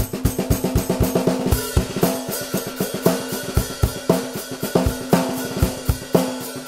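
A stripped-down cajon drum set played with bundled rods in a steady groove: low cajon kick thumps under quick snare strokes, with a cymbal wash coming in about a second and a half in.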